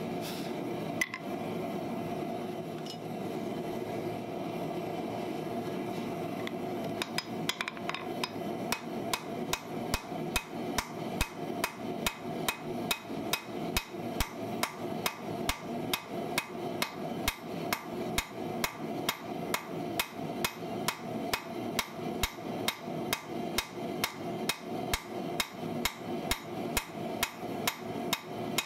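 Hand-hammer blows on a red-hot farrier's rasp lying on a steel anvil, a steady rhythm of about two to three strikes a second, ringing off the anvil. For the first several seconds only a steady hum is heard before the hammering starts.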